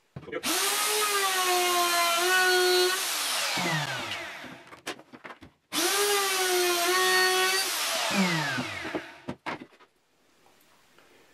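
Makita RP0910 plunge router with a 50 mm slot cutter, run twice to cut biscuit slots in the edge of a wooden tabletop segment: each time it spins up quickly to a steady high whine for about two and a half seconds, then winds down with falling pitch.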